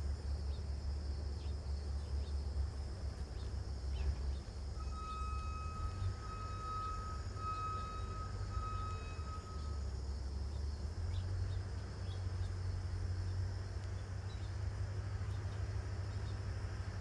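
Outdoor ambience: a steady high drone and a low rumble, with faint scattered clicks. From about five seconds in, a clear, steady tone is held for about five seconds, swelling a few times.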